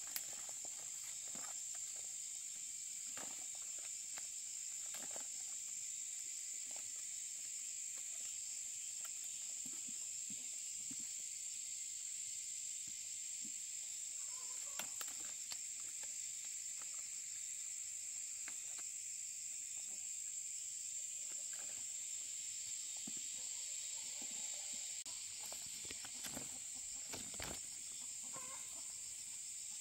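Outdoor rural ambience: insects buzzing steadily at a high pitch, with scattered light clicks and rustles and a chicken clucking briefly a couple of times.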